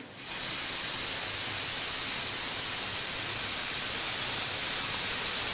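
Pressure cooker whistling: steam jets out past the weight valve in a steady hiss that starts about a quarter second in. It is the cooker's second whistle, the cue to turn off the flame under the potatoes.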